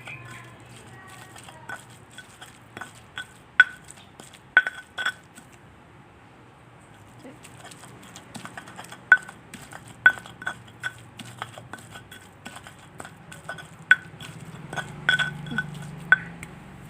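Metal utensil clinking against cookware in the kitchen: a string of sharp, ringing clinks in two irregular runs, with a short pause about six seconds in.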